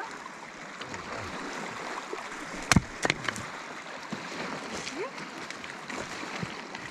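A single sharp axe strike splitting a log round on a chopping stump about three seconds in, with two lighter knocks just after. Lake water lapping on a stony shore runs underneath.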